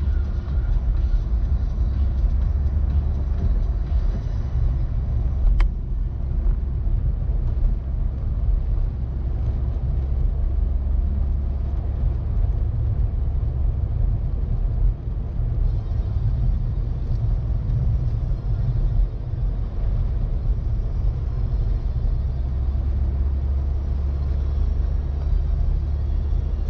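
Steady low rumble inside a moving car's cabin: engine and tyre noise while driving on a snow-covered road, with one brief tick about five seconds in.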